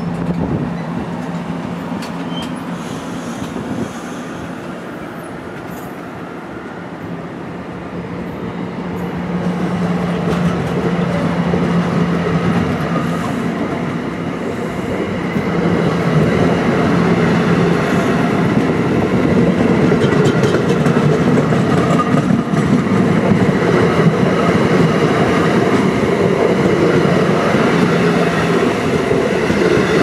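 NJ Transit Multilevel bilevel passenger coaches rolling past, their wheels clicking over the rail joints, with a steady low hum under the first half. The passing train grows louder about halfway through.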